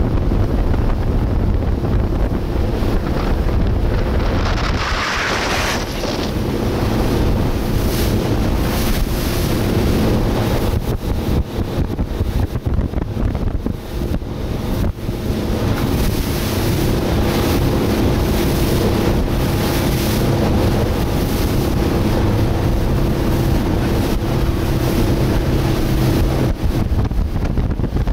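Motorboat running at speed: a steady engine drone under heavy wind buffeting on the microphone and rushing water from the hull and wake, with a brief surge of hissing spray about five seconds in.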